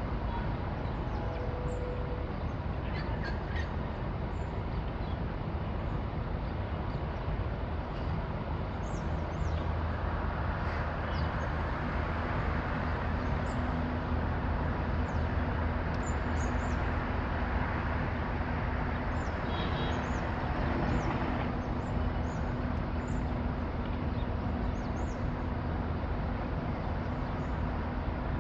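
Alstom X'Trapolis electric train standing still, its onboard equipment running with a steady hum. A deeper hum and a steady tone come in about ten seconds in. Small birds chirp now and then.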